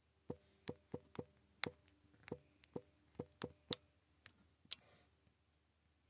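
About ten light, irregular taps or clicks over a few seconds, each with a short hollow ring, then a last one near the five-second mark.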